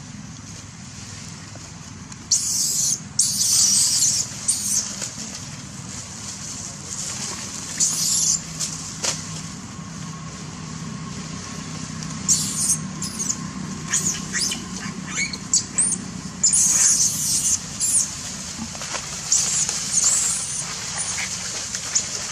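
Irregular short bursts of rustling and scratching with faint high squeaks from macaques moving about, over a steady low hum.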